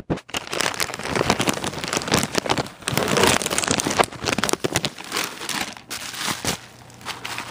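Plastic packaging crinkling and rustling while being handled: dense rapid crackling that thins out to a few clicks about a second before the end.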